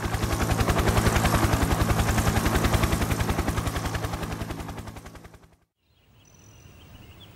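Helicopter sound effect: a fast, even rotor chop over a low engine hum that swells up and then fades away. Near the end, faint birds chirp.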